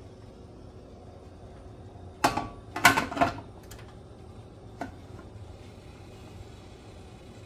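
Several sharp metallic clanks and clinks from the aluminium steamer pot being handled, bunched about two to three seconds in with one fainter clink near five seconds, over a steady low hum.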